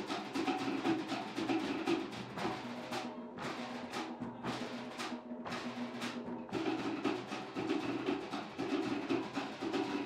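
Cook Islands drum ensemble playing a fast drum-dance (ura pa'u) beat: rapid, dense strikes on wooden slit drums with skin drums underneath.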